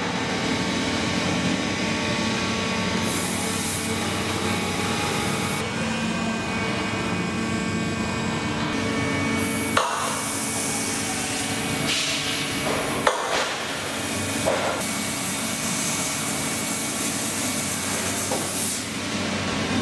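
Three-roll steel section bending machine running as it curves steel I-beams: a steady mechanical hum with several held tones and hiss, with a few sharp metal knocks about halfway through.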